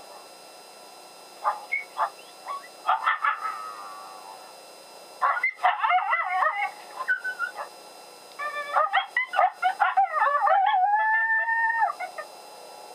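Coyote vocals blown on a predator call to draw a reply from coyotes: scattered yips and short barks, then a fast run of yips that leads into one long howl that breaks off sharply near the end.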